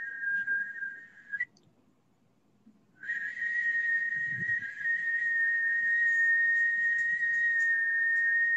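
A steady, high-pitched whistle-like tone, played as a sound-healing "energy" sound. It breaks off about one and a half seconds in, then after about a second and a half of silence starts again and holds.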